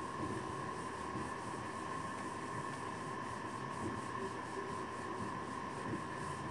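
Steady room tone: an even hiss with a faint constant hum and no distinct events.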